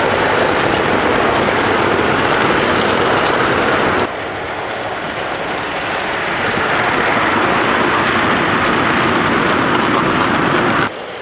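Gas-fired Accucraft M6 gauge 1 live-steam locomotive and its train of wagons running fast past at close range: a loud, dense mechanical rush and rattle of running gear and wheels on the track. The sound drops abruptly about four seconds in, builds again, and drops again just before the end.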